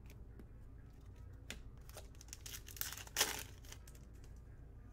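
Wrapper of a Panini NBA Hoops trading-card pack crinkling and tearing open, loudest about three seconds in, after a few short clicks.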